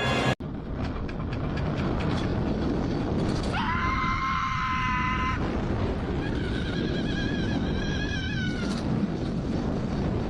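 A dog gives two long, high-pitched cries over a steady background noise: the first rises quickly and then holds its pitch, and the second wavers and falls away at the end.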